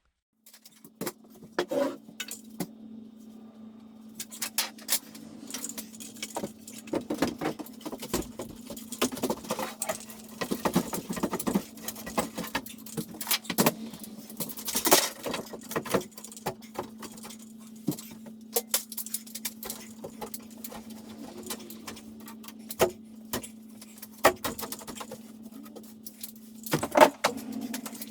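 Irregular knocks, taps and rattles of a notched wooden board being handled and fitted into place in a wall, over a steady low hum.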